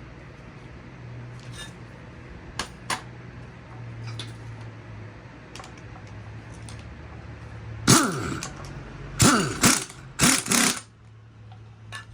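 A power tool runs in three short bursts about eight to eleven seconds in, each winding down in pitch, driving the spring compressor's threaded rods to compress the strut's coil spring. Before them there are a few faint metal clicks over a steady low hum.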